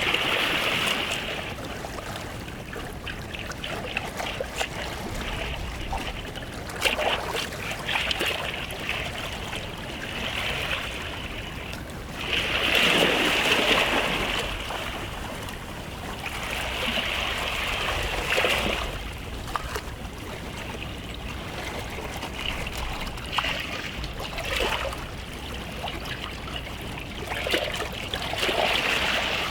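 Small sea waves washing onto a beach shore. The hiss of water swells and fades every few seconds as each wave comes in, with the biggest wash about halfway through.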